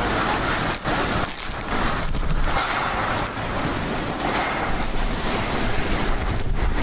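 Handheld hairdryer running: a loud rush of blown air with a few brief dips.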